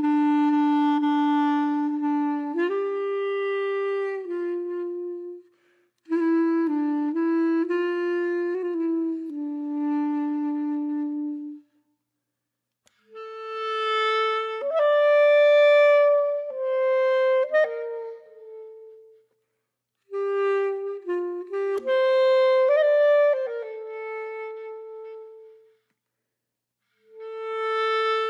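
Solo wind instrument playing a slow melody, one held note at a time with slight slides between notes, in four phrases separated by short pauses.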